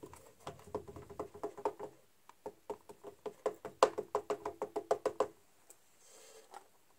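Black ink pad patted quickly against a rubber stamp to ink it: a rapid run of light plastic taps, about five a second, each with a short ring. The taps stop a little past five seconds in.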